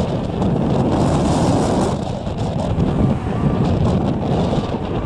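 Wind rumbling steadily on the microphone, mixed with the noise of cars and a pickup truck driving past close by.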